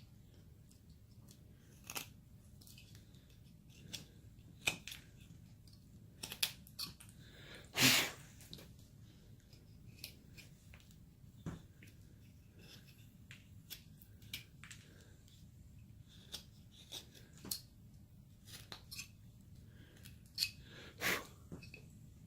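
Carving knife slicing and paring basswood: irregular short crisp cuts a second or two apart, with a longer, louder cut about eight seconds in and another near the end.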